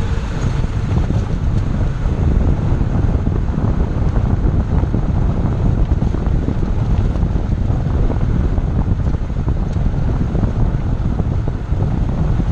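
Heavy wind buffeting on the microphone, a dense, low, fluctuating rumble, over the noise of a car being driven.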